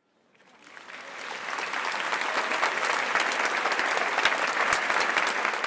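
Applause: many hands clapping, fading in over the first second or two and cutting off abruptly near the end.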